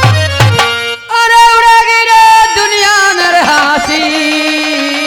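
Dhola folk music: a few quick hand-drum beats, then the drumming stops and a singer holds one long note that drops to a lower pitch partway through.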